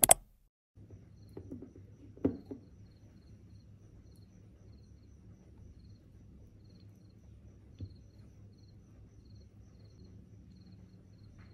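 Quiet room tone with a faint insect chirping in short, evenly spaced pulses, and a single thump about two seconds in.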